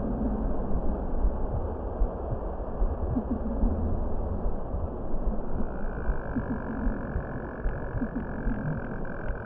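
Steady, low ambient relaxation soundscape: a dense, deep hiss with no breath cues or voice, and faint sustained tones coming in about six seconds in.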